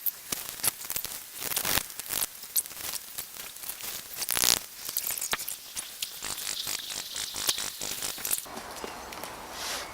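Close handling noise: a run of sharp clicks, rustles and scrapes, with one louder rasp about four and a half seconds in, giving way to a softer steady hiss near the end.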